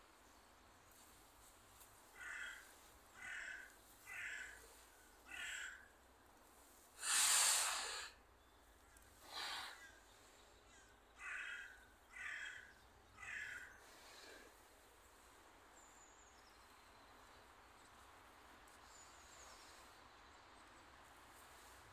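A crow cawing in two runs, first four caws and later three, about a second apart. Between the runs come a louder, harsh noise about a second long and a shorter one soon after.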